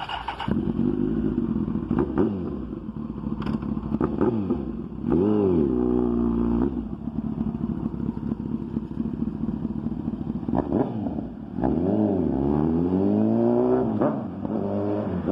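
A 2008 Kawasaki ZX-10R's inline-four engine through a full M4 exhaust, accelerating hard several times with the pitch climbing and dropping, the longest pull about three quarters of the way in. Short crackling pops come off the throttle between pulls.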